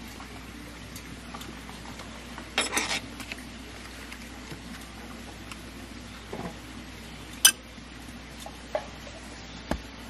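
Hot water poured from a stainless steel pot into an instant noodle tray, followed by clinks and knocks of metal cookware, metal chopsticks and an enamel mug being set down on the table. A short clatter comes about three seconds in, and a single sharp click, the loudest sound, comes about seven and a half seconds in.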